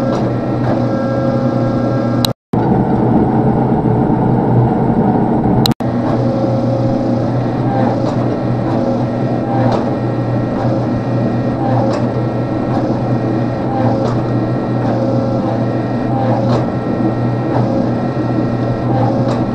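Forging press running with a steady mechanical drone from its motor and pump while its round drawing dies work a hot Damascus billet, with a faint click about every two seconds. The sound drops out briefly twice, about two and six seconds in.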